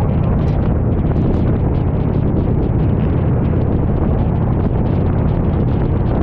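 Harley-Davidson touring motorcycle's V-twin engine running steadily at highway cruising speed, heard under heavy wind buffeting on the microphone.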